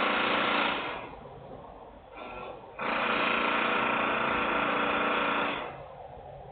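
Loud industrial machinery noise: a buzzing mechanical rattle in two bursts, one about a second long at the start and a longer one of about three seconds beginning roughly three seconds in, with a lower steady hum between them.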